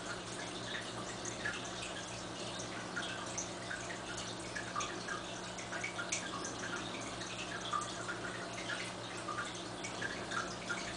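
Aquarium water trickling and dripping, with many small irregular plops over a steady low hum.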